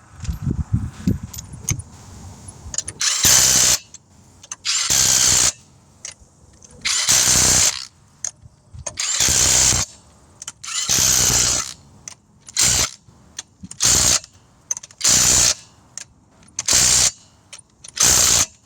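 Cordless power tool run in about ten short bursts, driving lug nuts onto a wheel, after a brief rattle of clicks at the start.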